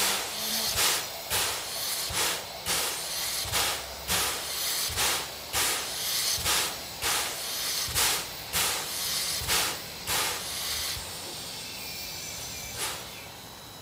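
C11 steam locomotive standing still, its steam-driven air pump puffing about twice a second with a hiss of steam, as it charges the air brake system. The puffing stops about eleven seconds in, leaving a steady steam hiss.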